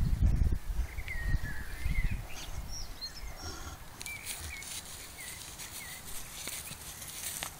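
Scottish Highland cow grazing right by the microphone, ripping grass in a crackly run of quick tears from about halfway through. Small birds chirp in short calls throughout, and wind buffets the microphone in the first two seconds.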